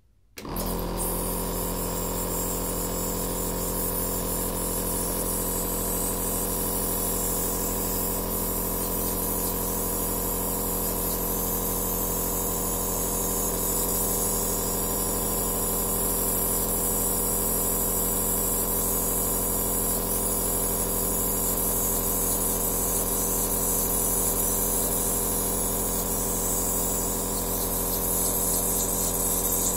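Aerosol therapy nebulizer's compressor switching on about half a second in, then running steadily: a hum with an airy hiss above it.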